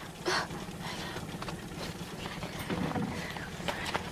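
Small boat rocking at sea: water slapping and splashing against the hull over a steady low rumble, with a few short knocks.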